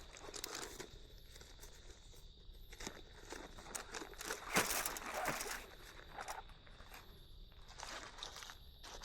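Irregular rustling and crinkling of camping gear being handled, with a few soft crunches and steps, strongest about halfway through. A steady high-pitched whine runs underneath.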